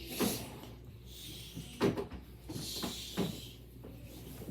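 A handful of short, soft knocks and bumps with a rustling hiss between them.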